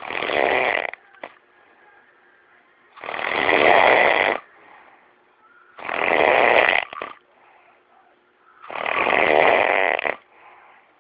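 A man snoring in his sleep: four long snores, about three seconds apart, with quiet breathing in the gaps.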